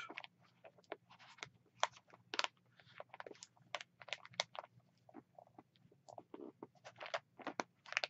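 Faint, scattered crackling and clicking of paper, typical of pages of a prayer book being handled and turned, over a faint steady low hum.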